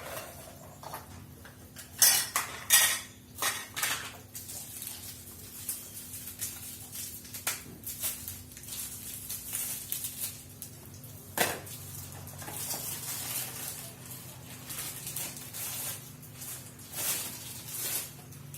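Kitchen utensils and containers clattering and clinking on a countertop while minced pork is portioned: a cluster of sharp knocks about two to four seconds in, then scattered smaller clinks and knocks.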